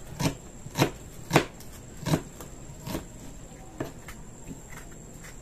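Knife chopping vegetables on a cutting board: about six sharp knocks, roughly half a second to a second apart, fading toward the end.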